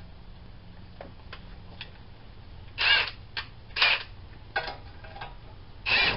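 Faint clicks, then a handful of short metallic rattles and clatters from hand tools and a socket being handled at a car's wheel hub.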